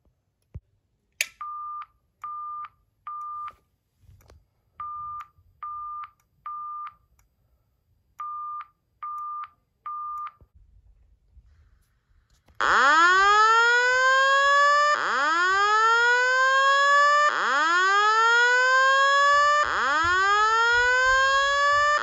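Fire alarm speakers sounding evacuation tones. First comes the temporal-three pattern: three groups of three short, steady, mid-pitched beeps. From a little past the halfway point, a Simplex TrueAlert speaker/strobe gives a louder slow whoop, four rising sweeps about two seconds apart.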